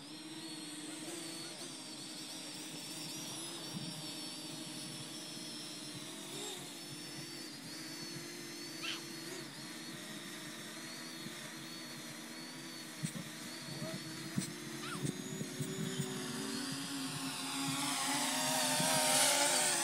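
Parrot Anafi quadcopter's propellers whining steadily as it flies. Near the end it grows louder and its pitch sweeps as it passes low overhead.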